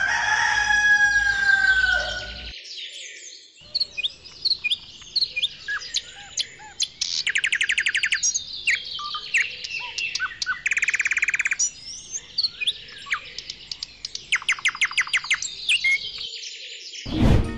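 Songbirds chirping and calling, with several fast rattling trills of a second or so each. A short, loud whoosh comes near the end.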